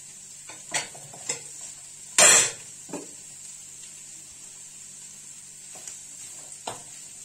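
Chopped onions being knocked off a plastic cutting board with a wooden spoon into a pan of frying meat and peppers. There is one short, loud clatter about two seconds in, then a low sizzle with a few light knocks of the spoon.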